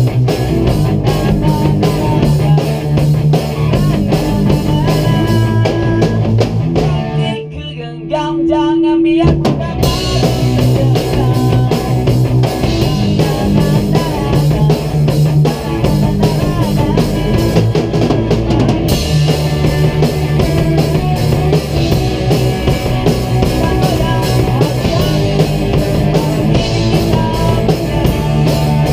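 Rock band jamming: drum kit and electric guitars playing together. About seven seconds in, the drums drop out for two seconds or so while a guitar holds one ringing note, then the whole band comes back in.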